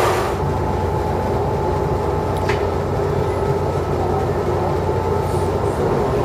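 A train pulling slowly out of a station, heard from inside the carriage: a steady low engine hum and running rumble.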